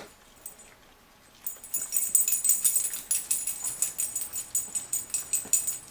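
Metal dog collar tags jingling rapidly and unevenly, starting about a second and a half in.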